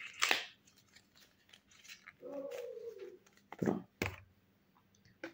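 Cosmetic packaging being handled: scattered clicks, taps and rustles of a small cardboard box and its wrapping, the sharpest at the start and two close together about three and a half seconds in. A short, falling hummed murmur of the voice sits in the middle.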